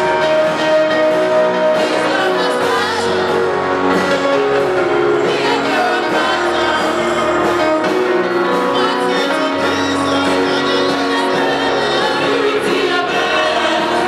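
Gospel music with singing over a steady instrumental backing.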